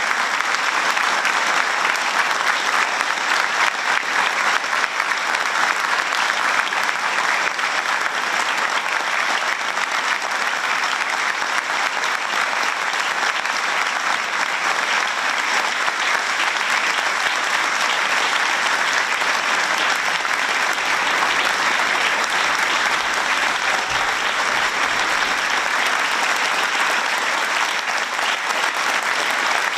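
Steady, sustained applause: many hands clapping densely without a break.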